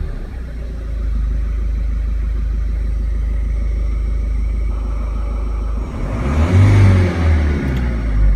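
Turbocharged car engine idling steadily, then revved briefly about six seconds in. The rev builds boost pressure of around 0.7 bar.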